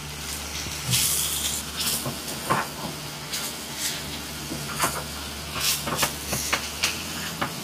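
Wooden spatula stirring and scraping spiced amla around a hot frying pan in irregular strokes, over a steady hiss of frying.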